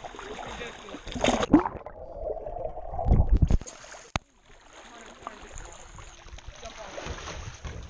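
Pool water splashing and sloshing around a waterproof action camera at the water's surface, with a few heavy thumps. For about two seconds in the first half the sound goes muffled.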